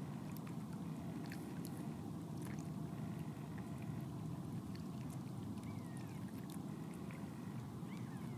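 Steady low rush of a small river flowing, with light splashes and drips as mute swans dabble with their heads under water, and a few faint high chirps.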